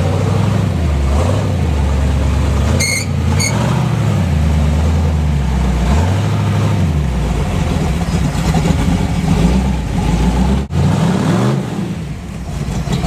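Early Ford Bronco's engine revving up and down under load as the truck crawls over rocks and roots, with two short high-pitched metallic pings about three seconds in.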